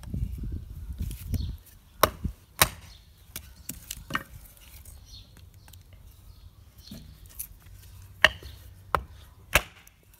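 Taramundi 445 knife blade chopping into a dry wooden stick: about six sharp, irregularly spaced knocks of steel biting wood, several close together near the end. A low rumble sounds for the first second or so.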